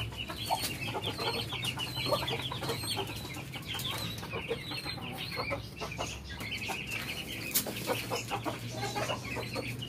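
A brood of chicks peeping rapidly and continuously in short, high, falling chirps while a hen clucks lower among them as they feed. A steady low hum runs underneath.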